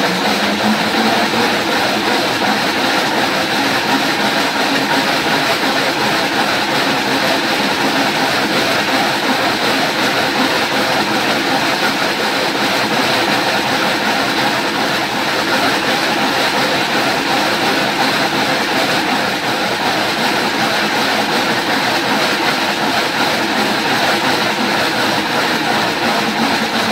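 Slat dog treadmill rolling steadily under a running dog, its slats rattling in a continuous train-like clatter.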